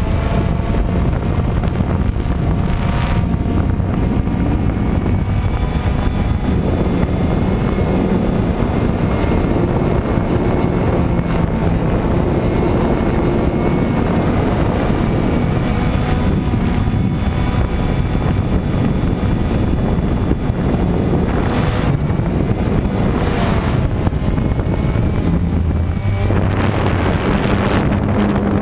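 Camera drone's electric motors and propellers running steadily, heard from the camera on the drone itself, their pitch drifting up and down as it manoeuvres. Wind buffets the microphone a few times, mostly in the second half.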